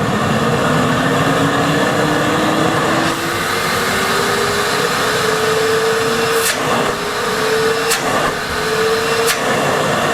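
Euroclean WD X2 wet-and-dry vacuum cleaner's motor running up to speed, its whine climbing slowly in pitch over several seconds over a steady rush of air, then holding. Three sharp clicks come in the second half.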